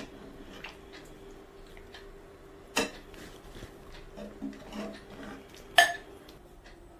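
A serving utensil clinking against a pot and bowl as chicken curry is dished out: two sharp clinks about three seconds apart, with softer scraping and clatter between them, over a faint steady hum.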